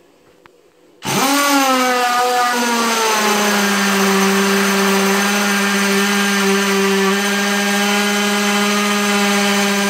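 An electric power tool's motor starts about a second in, its pitch dropping over the next two seconds as it comes under load. It then runs steadily with a whine and hiss until it cuts off abruptly.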